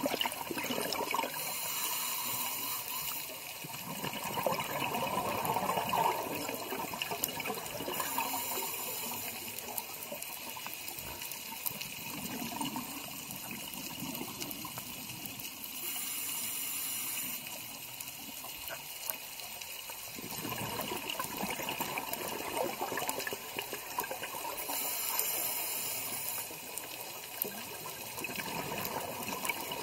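Scuba diver breathing through a regulator underwater: a hiss on each inhale, then a long bubbling rush on the exhale. The cycle repeats about every eight seconds, four breaths in all.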